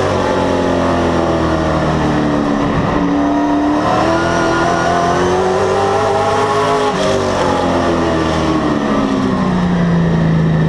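Race car's engine heard from inside the cockpit, running hard on the oval. The revs drop about two seconds in, climb for several seconds, drop off again, then hold steady near the end.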